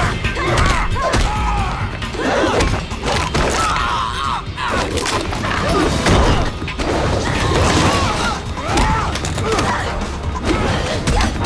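Action-film fight soundtrack: dramatic music under a string of thuds, whacks and crashes from punches and bodies hitting things.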